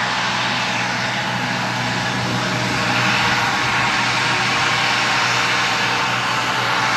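Jet airliner engines running, a loud steady rush of noise that swells slightly about three seconds in.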